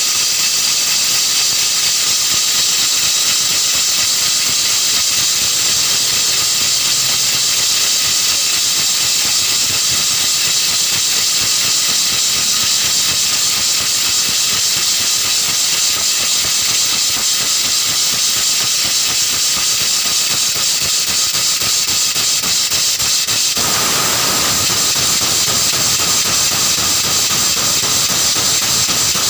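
Compressed air hissing steadily and loudly through a truck tyre's valve. About three-quarters of the way through, the hiss turns fuller and lower.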